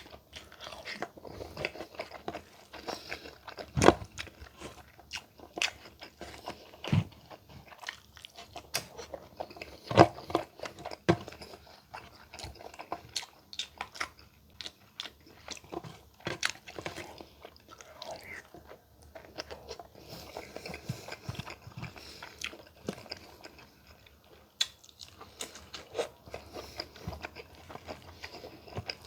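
Close-miked eating with no talking: steady chewing and biting, with irregular crunches and sharp clicks and a few louder snaps, as spicy laing and giant tiger prawns are eaten.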